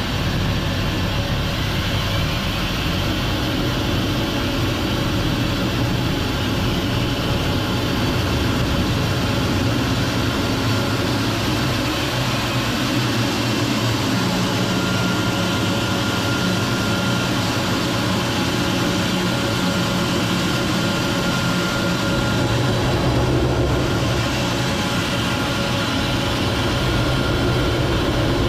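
Jet aircraft engine running steadily: a continuous low rumble under a broad rush of noise, with a faint thin whine that comes in about halfway through and fades out later.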